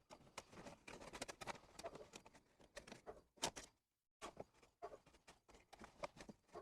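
Faint, irregular clicks and rustles of hands handling wiring and a plastic zip tie, with one slightly louder click a little past the middle.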